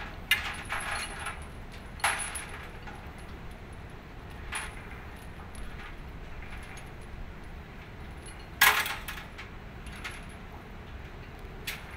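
Sharp metallic clinks and clanks, about five of them spread out, over a steady background hum. The loudest comes about two-thirds of the way through, and the first ones leave a brief ringing.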